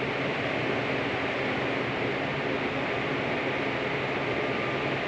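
Steady hiss with a low hum, the sound of indoor ventilation or air conditioning running.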